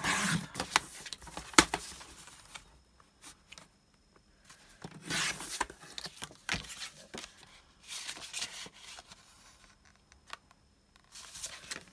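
Cardstock being handled on a paper trimmer: paper sliding and rustling in short spells, with clicks and one sharp, loud click about a second and a half in.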